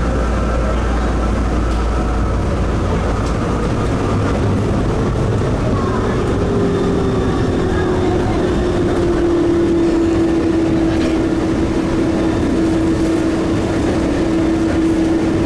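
Innovia APM 256 rubber-tyred automated train running between stations: a steady rumble of its tyres on the concrete guideway, with a motor whine that sinks slightly in pitch and grows louder from about halfway through.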